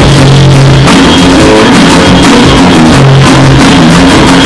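A small rock band playing an instrumental passage without vocals: electric bass, electronic drum kit and acoustic guitar, loud and dense throughout.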